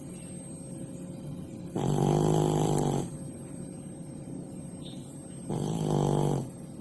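A sleeping cat snoring: two buzzing snores, each about a second long, roughly three and a half seconds apart.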